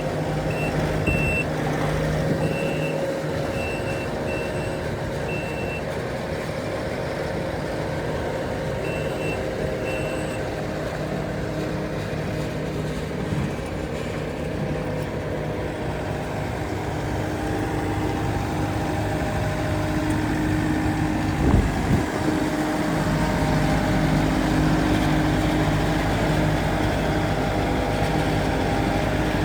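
Kubota SSV65 skid steer's diesel engine running, with its back-up alarm beeping in short pulses during the first several seconds and again briefly about nine seconds in. A knock sounds about twenty-one seconds in, after which the engine runs louder.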